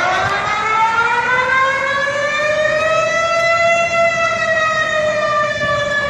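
Malaysian emergency warning siren sounding one long, loud wail that rises slowly in pitch, peaks about four seconds in and then starts to fall.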